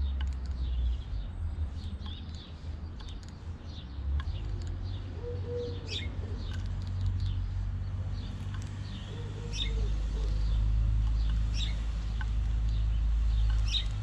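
Small garden birds chirping again and again over a steady low rumble.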